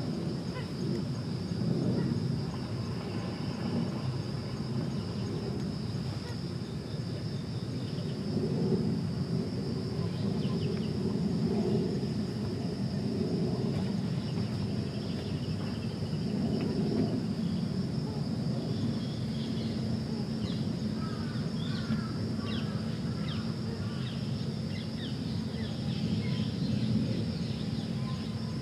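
Outdoor ambience: a steady high insect drone under a low murmur of distant voices, with a few bird chirps about two-thirds of the way through.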